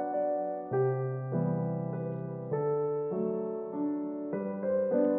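Background piano music: a slow run of held chords, a new chord every second or so.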